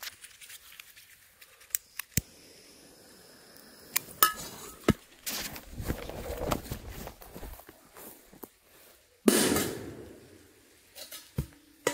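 A Polish Angry Bulldog firecracker goes off about nine seconds in with a single sharp bang, and the echo dies away over about a second. Before the bang there are a few light clicks and the rustle of feet moving quickly through grass.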